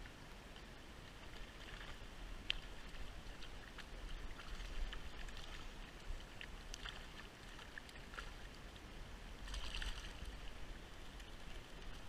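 Shallow stream running over a riffle, with small scattered splashes from a hooked fish thrashing at the surface. A louder splash comes about ten seconds in as the fish is brought to the net.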